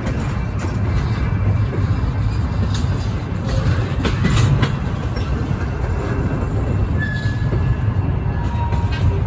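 Double-stack intermodal container well cars rolling past close by: a steady low rumble with irregular clacks and clanks from the wheels and car connections, and a brief faint squeal about seven seconds in.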